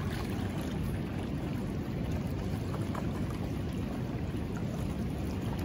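Steady rushing of a fast-flowing river's current, an even noise heaviest in the low range.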